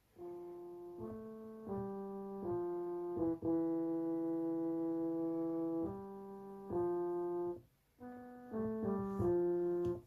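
SouidMy G-310W digital keyboard playing a short melody in its trumpet voice: held notes that sound steadily, without dying away, for as long as each key is held. A brief break comes about three-quarters of the way through, then a quicker run of notes.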